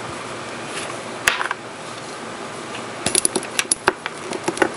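Small hard clicks and taps from handling nail-swatching tools and objects on the table: a single click about a second in, then a quick run of clicks over the last two seconds.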